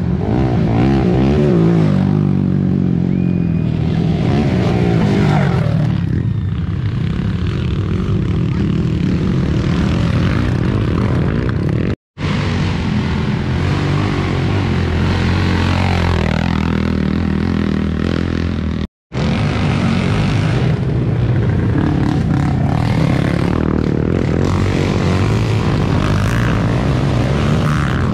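Racing quad (ATV) engines revving up and down as riders race. The sound cuts out abruptly for an instant twice, about twelve and nineteen seconds in.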